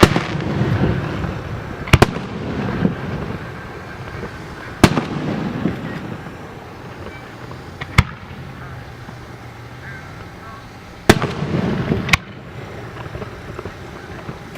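Fireworks display: aerial shells bursting with sharp bangs every two to three seconds, six in all, each followed by a low rumbling echo.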